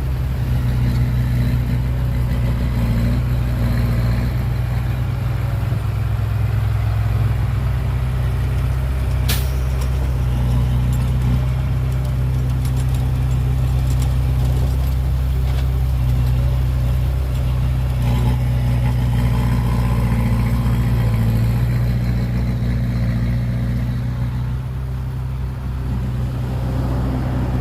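Heavy diesel earthmoving machinery, a bulldozer and dump trucks, running steadily, its engine rising and easing slightly with the load. There is a single sharp click about nine seconds in.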